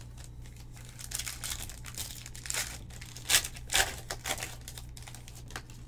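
Foil trading-card pack wrapper being torn open and crinkled in the hands: irregular crackling, loudest in two sharp bursts a little past the middle.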